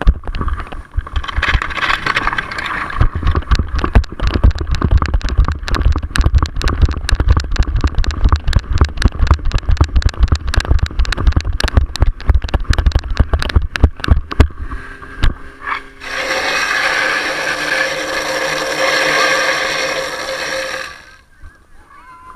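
Fire-sport attack run heard from a camera on the running nozzle man: rapid jolts and knocks of running steps over a low wind rumble for about fifteen seconds. From about sixteen seconds, a loud steady hiss of water jetting from the hose nozzle, which stops shortly before the end.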